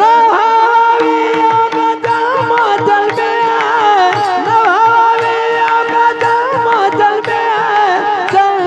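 Devotional kirtan music: a voice holding a long ornamented line without words, wavering and gliding in pitch, over a steady held drone, with pakhwaj drum strokes keeping the rhythm beneath.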